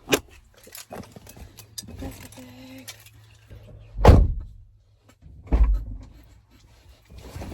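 Keys jangling and handling clicks, then two heavy thumps about four and five and a half seconds in.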